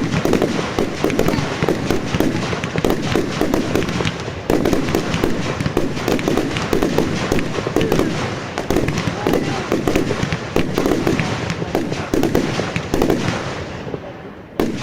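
Fireworks going off in a dense, continuous barrage of rapid crackling and bangs, thinning out and fading near the end.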